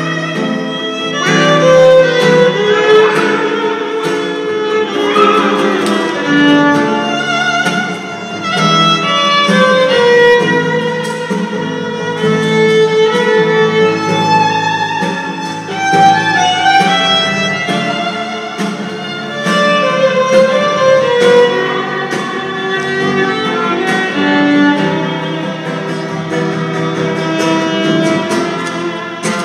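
Violin playing a wavering melody over a strummed acoustic guitar accompaniment.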